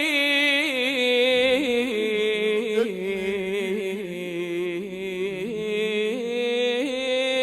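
A man's unaccompanied voice holding one long, ornamented melismatic note of an Iraqi Husseini lament, wavering and slowly stepping down in pitch.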